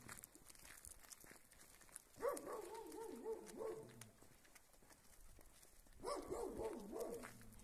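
A dog barking in two runs of quick barks, one about two seconds in and another about six seconds in, from a dog behind a fence.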